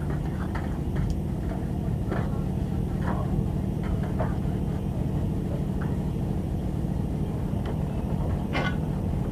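A fishing boat's engine running at a steady idle, a constant low hum, with a few faint knocks and clatters on board over it.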